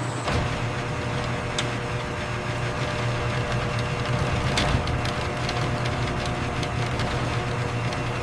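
Factory machinery running with a steady low hum and a few sharp clicks.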